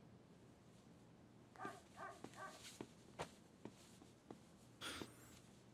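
Near silence: quiet room tone broken by three faint, short pitched yelps close together about a second and a half in, then a few soft clicks and a rustle as a shirt is pulled on.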